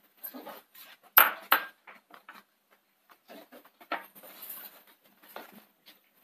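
Kitchen dishes and utensils clinking and knocking as they are handled, with two sharp clinks about a second in and lighter knocks and rustling after.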